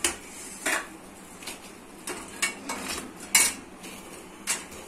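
A metal slotted spoon clinking against a stainless steel bowl of sugar syrup as fried bread pieces are lifted out: a handful of separate sharp clinks, the loudest about three and a half seconds in.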